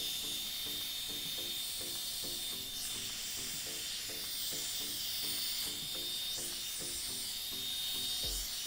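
Seekone handheld electric heat gun running steadily, a hiss of blown air with a thin high whine, as it heats fresh leather dye on a steering wheel. Background music with a steady beat plays underneath.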